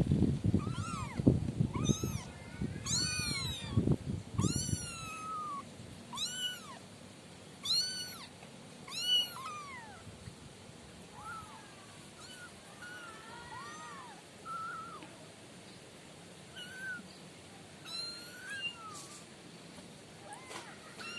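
Young kittens mewing over and over: short, high, thin calls that rise and fall, about one a second and loudest in the first ten seconds, then fainter and more spread out. A low rumbling noise runs under the first five seconds or so.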